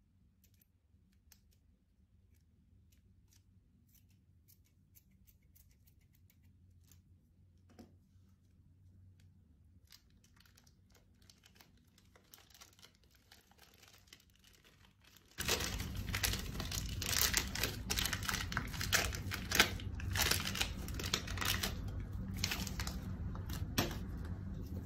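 Faint crinkling and clicking of a plastic piping bag being handled and squeezed. About two-thirds of the way in it turns suddenly much louder: a dense run of sticky crackling and clicking from red slime being squeezed and worked.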